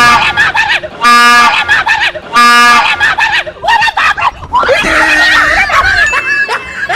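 Three short, loud, steady-pitched train horn blasts over the first three seconds, followed by a person screaming and shouting in fright.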